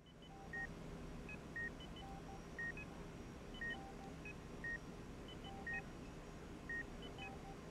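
A sci-fi computer console beeping: short electronic beeps and blips at several pitches repeat in a looping pattern, about one main beep a second, over a steady low hum.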